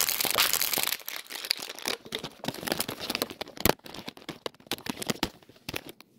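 Handling noise from a phone being moved and covered over its microphone: a loud rustle for about the first second, then irregular crackles and knocks that fade out near the end.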